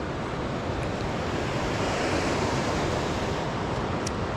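Steady rush of the Poudre River's flowing water, swelling slightly about two seconds in.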